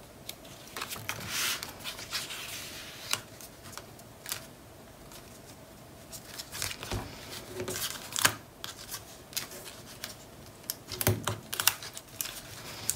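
Hands working cardstock on a cutting mat: paper rubbing and sliding, with scattered small clicks and taps. Near the end, fingers pick at a piece of adhesive tape that is stuck.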